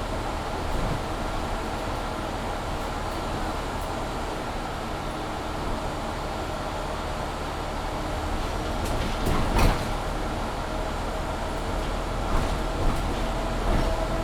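Inside a Mercedes-Benz Citaro C2 G articulated bus under way: a steady rumble of the drive and road, with the loud heater blower humming over it. A sharp knock or jolt comes about two-thirds of the way through, and a few lighter rattles near the end.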